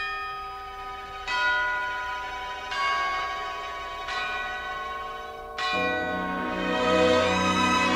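Bells struck one at a time, about every second and a half, each tone ringing on under the next. Near the end, low sustained instrumental notes come in beneath them as a piece of music begins.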